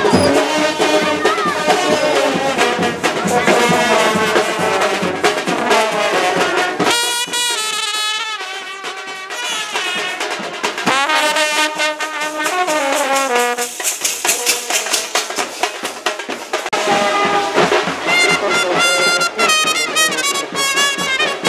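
Brass band playing a melody, with held notes and a run of falling notes in the middle.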